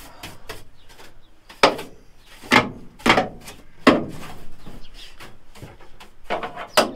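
Wire brush scrubbing the bare sheet-metal inside a van, with about five loud, sharp scraping knocks as the brush strikes the panels.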